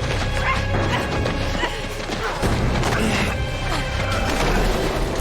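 Tense action-drama score with a heavy, steady low pulse, cut through by several sharp crashing impacts.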